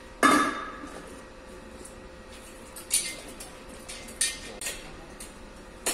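A loud metal clang about a quarter second in that rings briefly, then several lighter metallic clanks, as a car engine is hoisted out of the engine bay on a shop engine crane.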